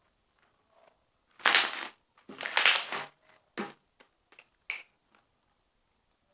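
Clear glue slime being squished and stretched by hand: two longer squishing, crackling sounds, then a run of about five short sharp pops as trapped air bubbles burst.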